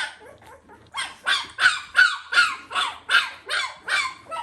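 Unweaned puppy crying in a quick run of short, high yelps, about three a second, each falling in pitch.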